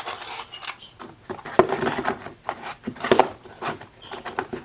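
Products and boxes being handled and unpacked: a run of rattles and knocks, sharpest about a second and a half in and again around three seconds in.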